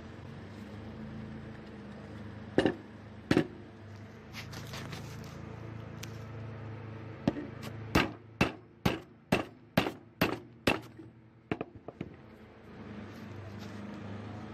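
Hammer blows on a hard surface: two sharp strikes, a pause, then a run of about eight strikes at roughly two a second, ending with a few lighter taps.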